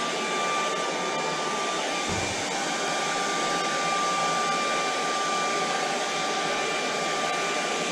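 Handheld hair dryer running steadily: a constant rush of air with a steady, thin motor whine over it.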